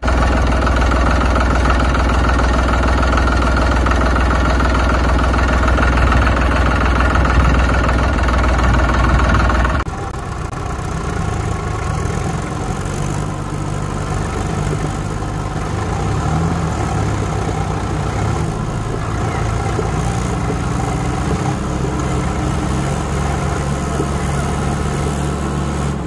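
Vehicle engine running: a loud, steady, deep idle that switches abruptly about ten seconds in to a somewhat quieter, rougher engine sound.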